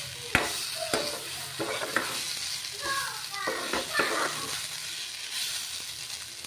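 Fiddlehead fern greens (dhekia) sizzling in oil as they are stir-fried in a non-stick kadai. A steel spatula scrapes and knocks against the pan several times.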